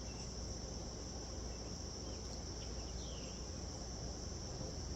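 Steady, high-pitched chorus of insects, with a couple of faint short bird chirps.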